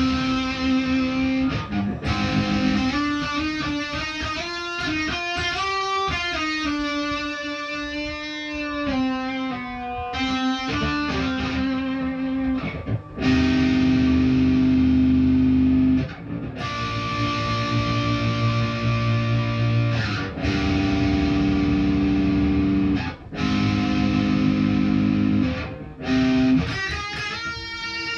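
Electric guitar being practised: quick single-note lines with pitch bends for the first several seconds, then chords held for a few seconds each with short breaks between them.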